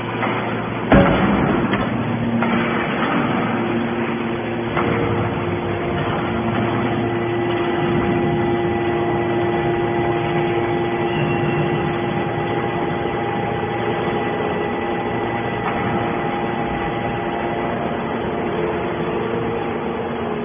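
Baling machine running: a steady mechanical din with several held humming tones, and one sharp loud clank about a second in.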